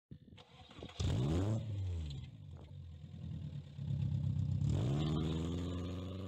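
Car engine revving twice: a short rev about a second in that rises and drops back, then a second rev near the end that climbs and holds.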